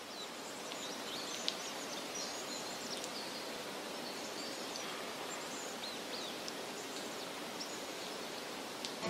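Outdoor natural ambience: a steady hiss of rustling foliage with scattered faint, high bird chirps.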